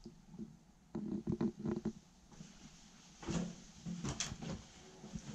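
Irregular footsteps and knocks on the metal floor and fittings of an empty railway passenger car, with a sharp click just past four seconds in.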